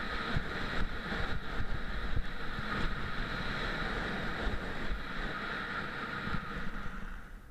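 Wind buffeting a ski camera's microphone during a downhill run, with a steady rushing hiss of skis sliding on packed snow and a few faint knocks; the rush drops away near the end as the skier slows.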